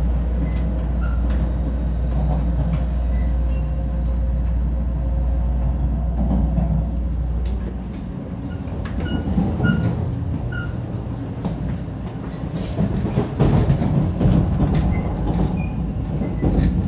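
A 500 Series Shinkansen heard from inside a carriage as it runs out of the station: a steady low rumble for the first half, then a busier rattle with many short clicks from the wheels over the track.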